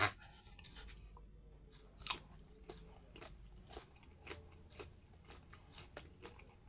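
Close-up chewing of mango slices, with irregular soft crunches and mouth sounds; the sharpest crunch comes about two seconds in.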